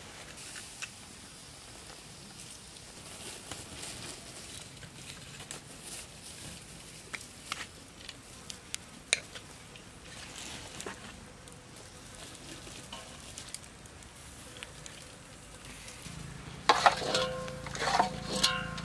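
Duck sizzling on a wire grill over wood embers, with scattered sharp clicks of a plastic spatula against the meat and grill as the pieces are turned. Near the end come louder clattering, a brief pitched sound and a low hum.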